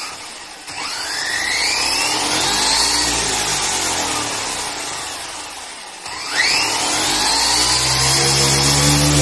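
JLB Cheetah RC buggy's brushless electric motor and drivetrain whining as the throttle spins the wheels up to high speed. The whine rises from about a second in, eases off, then climbs again about six seconds in.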